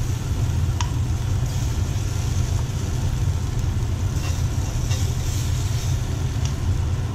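Seared scallops being lifted out of a hot cast iron skillet with metal tongs: faint sizzling oil and a few light clicks of the tongs, over a steady low rumble.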